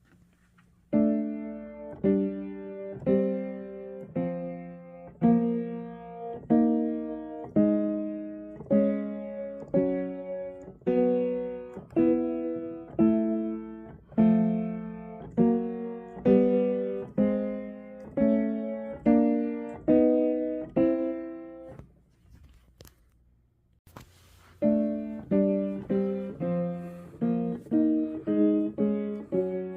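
Piano playing a steady run of struck chords, each dying away before the next, breaking off about 22 seconds in and resuming about two seconds later at a quicker pace.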